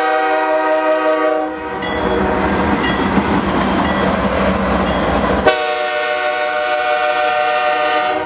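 Multi-note air horn of a CSX GE wide-cab diesel locomotive sounding as it passes close at speed. One blast ends a little under two seconds in, then the rumble and wheel noise of the passing locomotive fill the gap, and a second long blast starts about five and a half seconds in.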